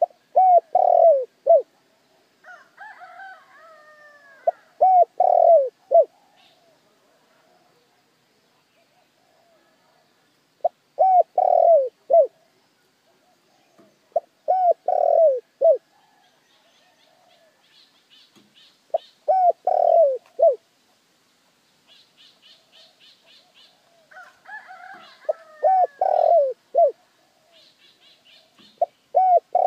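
Spotted dove cooing: short phrases of three or four low coo notes, repeated about every four to five seconds. Fainter, higher twittering calls come between the phrases.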